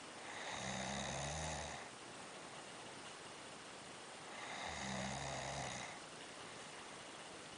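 A person snoring heavily: two long snores about four seconds apart, each lasting about a second and a half, over a steady background hiss.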